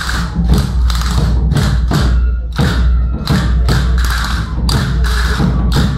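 Rhythmic percussion for a traditional folk dance: sharp clacking strikes about three times a second over a steady low thudding.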